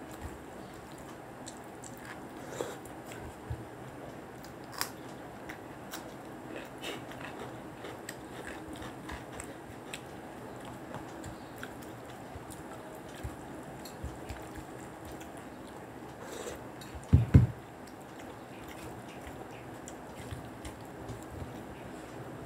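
Eating sounds: chewing and soft clicks of fingers mixing rice on plates as two people eat by hand. About three-quarters of the way through, two quick low thumps stand out as the loudest sounds.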